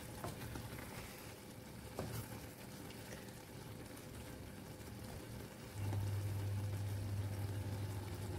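Apple and walnut filling sizzling softly in a steel pot as its sugar syrup cooks down to a caramel, stirred with a wooden spoon that knocks lightly against the pot a couple of times. A low steady hum comes in about six seconds in.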